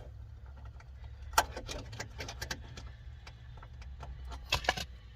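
Scattered clicks and taps of plastic as the trunk-light housing is pried at, with one sharp click about a second and a half in and a quick cluster near the end, over a low steady hum.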